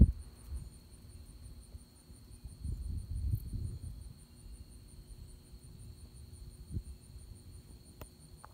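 Crickets trilling steadily at a high pitch through a low, rolling rumble of distant thunder that swells about two and a half seconds in and fades out by four seconds.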